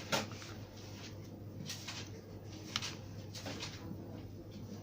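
Several short, sharp clicks and light knocks, spaced irregularly, over a steady low hum.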